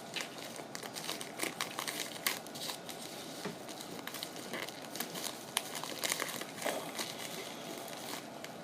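Packaging being unwrapped by hand, with irregular crinkling and crackling that dies down near the end.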